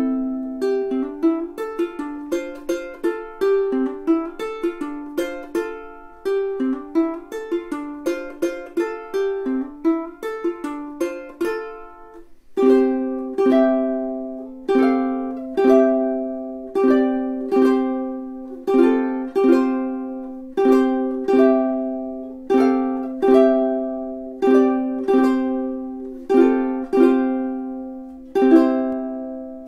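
Kala KA-BMB-T all-solid bamboo tenor ukulele played solo: quick picked single notes for the first twelve seconds or so, then a slow run of strummed chords about one a second, the last chord left ringing.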